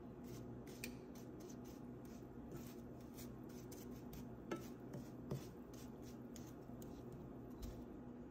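Wooden slotted spatula stirring jaggery and water in a ceramic-coated frying pan: soft scraping with a few light taps against the pan, over a faint steady hum.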